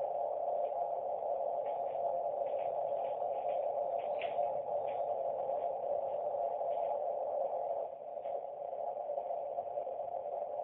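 Receiver hiss from an Icom IC-706 transceiver heard through its narrow CW filter: a steady, even band of noise pitched in the middle range, a little quieter about eight seconds in.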